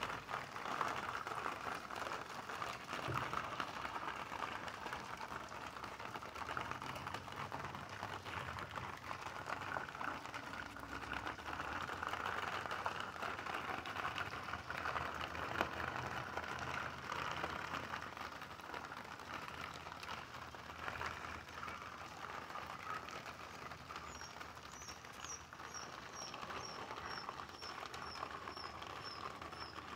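Steady outdoor background hiss with fine crackling, and near the end a run of short, high chirps, about two a second, falling slightly in pitch.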